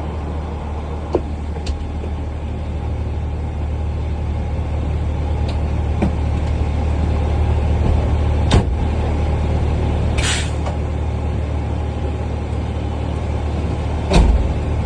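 Fire engine's diesel engine idling with a steady low rumble. About ten seconds in comes a short hiss of air from the air brakes, with a few light clicks scattered through and a heavier knock near the end.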